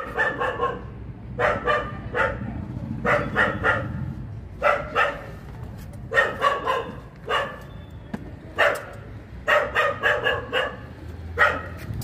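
A dog barking repeatedly in quick runs of three or four barks, a run about every second and a half.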